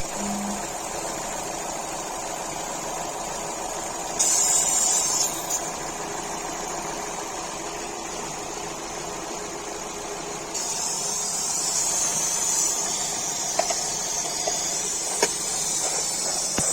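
Opel/Vauxhall petrol engine idling roughly with a steady hiss of air, a vacuum leak through the torn PCV valve diaphragm in the valve cover. The hiss briefly gets louder about four seconds in, and louder again for the second half.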